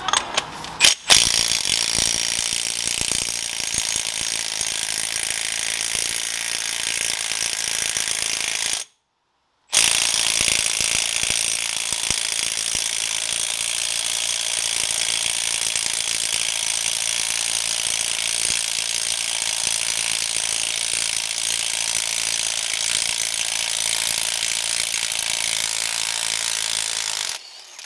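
Ratchet wrench clicking rapidly and steadily as it backs off the nut that drew the Saab 9-3's intermediate drive shaft into its new mid-shaft bearing. The clicking breaks off for about a second around nine seconds in, then runs on until just before the end.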